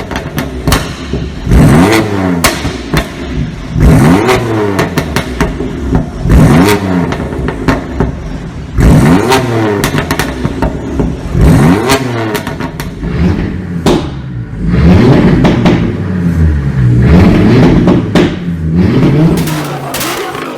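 Car engine blipped hard again and again, about every two to three seconds: each rev rises and falls away, and the exhaust pops and crackles as the throttle snaps shut. Near the end the revs rise and fall over a longer stretch, still crackling.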